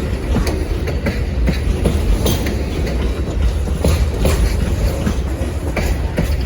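Amtrak Auto Train cars rolling past close by: a steady low rumble with frequent, irregular wheel clicks and knocks over the rails.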